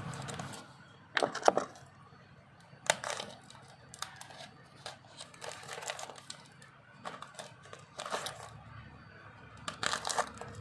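Handling noise: crinkling and rustling with scattered sharp clicks and knocks, the loudest about a second and a half in.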